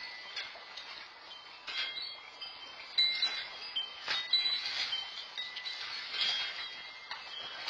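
Chimes jangling during earthquake shaking: several ringing tones at different pitches, struck over and over at irregular moments and left to ring.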